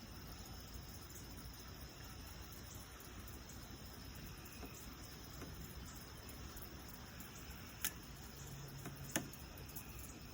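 Faint, steady high trill of crickets, with two sharp clicks about a second apart near the end.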